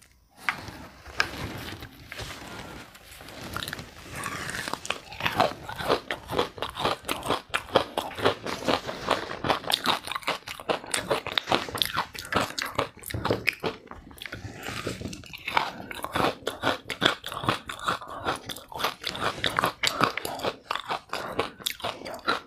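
Green-coloured ice rings with powdery frost inside being bitten and chewed: a dense run of crisp crunches, softer for the first few seconds and louder after about four seconds in.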